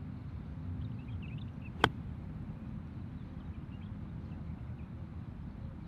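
A golf iron strikes the ball once on a short pitch shot, a single sharp click about two seconds in, over a steady low background rumble.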